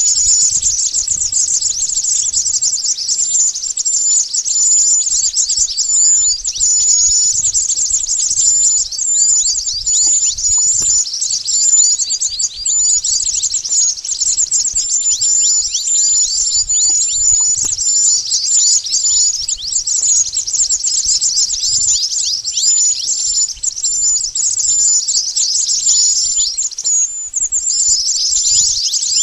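Bird-lure recording of mantenan bird calls: a dense, unbroken stream of rapid high chirps and short falling notes, many overlapping like a chattering flock.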